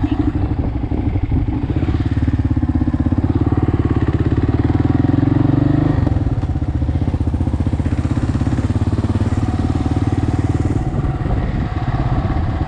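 Kawasaki KLR650's single-cylinder four-stroke engine running under way, a steady, fast thumping beat. It gets louder for a few seconds, then eases off about halfway through.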